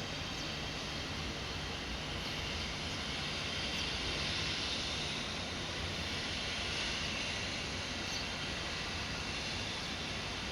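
Steady machinery noise of a fiber production line: an even hiss with a faint low hum underneath.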